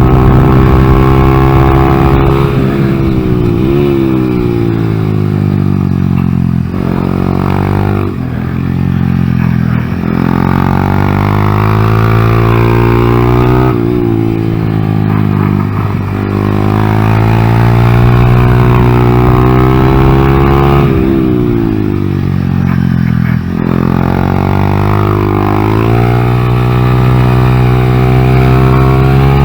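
Honda Grom's 125 cc single-cylinder engine running hard through a lap, its pitch climbing repeatedly as it revs up and falling back, with several sudden drops in pitch.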